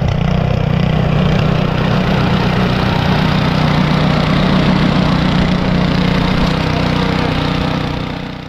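A loud motor vehicle engine running steadily close by, fading away near the end.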